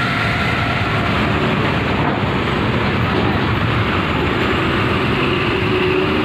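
Intercity coach's diesel engine running as the bus rolls slowly past at close range: a steady, mostly low-pitched vehicle noise.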